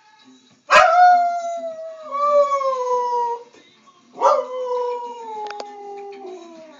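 Siberian husky howling: two long howls, each starting abruptly and sliding slowly down in pitch, the first under a second in and the second about four seconds in. Television theme music plays faintly underneath.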